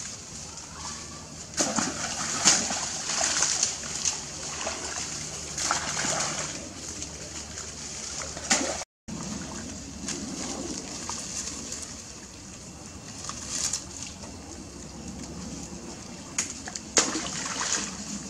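Macaques wading and splashing through shallow, duckweed-covered pond water: irregular splashes and sloshes that come in bursts, with a brief break in the sound about nine seconds in.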